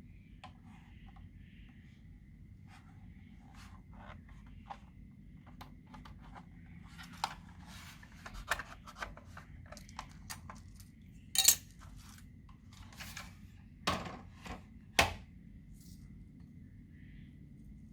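Hand-handling sounds of mixing things into slime: scattered small clicks, crinkles and taps, with three sharp knocks in the second half, over a steady low hum.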